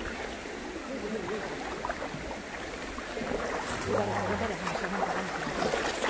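Steady rush of a shallow, rocky mountain stream, with people's voices over it now and then, loudest about four to five seconds in.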